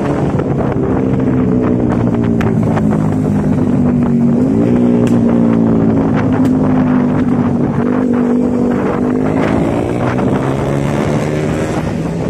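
Intercity bus diesel engine running under way through its loud growling 'ngorok' exhaust. The engine note jumps up about four and a half seconds in, drops back about eight seconds in, then climbs again as the bus pulls.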